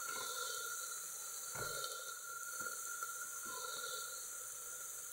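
Onion, ginger-garlic paste and spice masala frying in mustard oil in an aluminium pressure cooker: a steady low sizzle, with one faint knock about one and a half seconds in.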